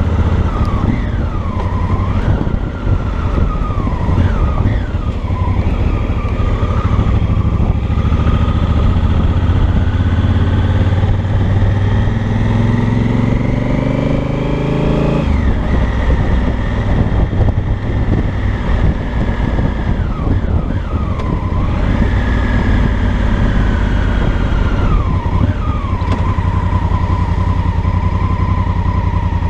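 2018 Honda Africa Twin Adventure Sports' 998 cc parallel-twin engine and exhaust pulling at low speed. The revs climb steadily for several seconds, then drop sharply about halfway through as the throttle closes or a gear changes. A higher whine slides up and down above the engine note.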